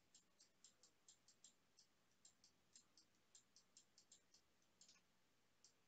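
Faint, irregular light clicks of a pen tapping on a digital drawing tablet as words are handwritten, about four a second. They stop about five seconds in, with one last click near the end.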